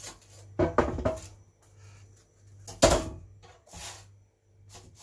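Spatula scraping and knocking against a plastic-coated air fryer basket as a toastie is turned over, a cluster of clicks around the first second and the loudest knock about three seconds in, with a few lighter taps after.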